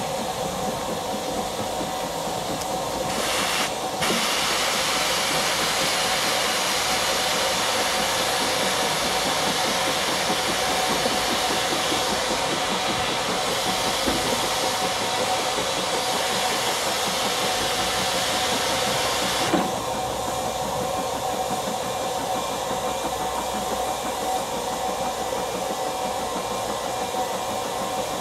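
Steam locomotive hauling a train of carriages away. Loud steam hiss comes in about three seconds in and cuts off suddenly after about sixteen seconds.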